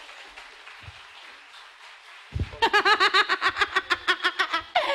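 Faint applause for about two seconds, then a person laughing loudly and rhythmically, a quick run of 'ha-ha' pulses about seven a second, close to the microphone.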